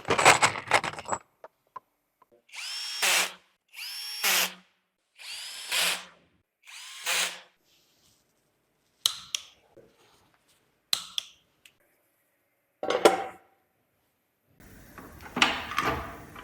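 Handheld power tool, a drill or driver, spinning up in four short runs of under a second each, about a second apart, with its pitch rising at the start of each run, as the engine is put back together. A few sharp metal clicks follow.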